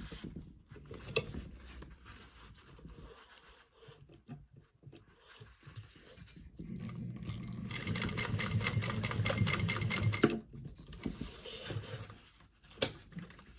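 Sewing machine stitching through seatbelt webbing in one run of about three seconds, with a low motor hum and a fast, even stitch rhythm. Lighter handling sounds come before it, and there is one sharp click near the end.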